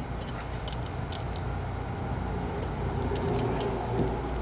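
Crescent wrenches clinking against the catch can's metal fittings as they are loosened and turned. The sharp metallic clicks come in two bunches, near the start and again about three seconds in, over a steady low hum.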